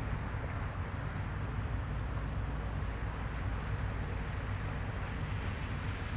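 Steady low rumble of a passing passenger ship's engines heard across open water, under an even hiss of wind.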